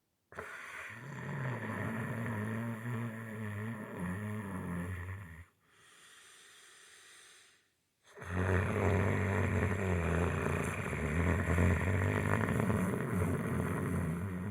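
A man snoring loudly: one long, low snore, then a much quieter breath, then a second long snore starting about eight seconds in.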